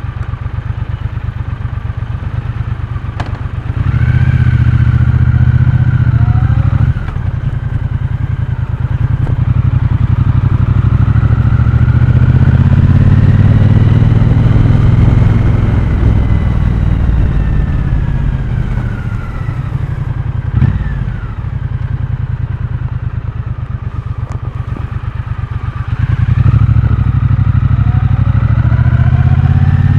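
Triumph T120 Bonneville's 1200 cc parallel-twin engine and exhaust, idling at first, then pulling away about four seconds in with the revs rising. The revs drop sharply about seven seconds in, climb again to a steady run, ease off with a brief thump around twenty seconds, and pick up again near the end.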